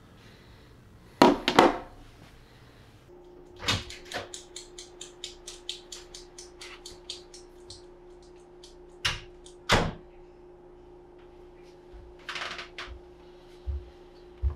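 Indoor handling noises: two loud thumps, then a run of quick light clicks, about two or three a second, over a steady hum, and two more thumps later on.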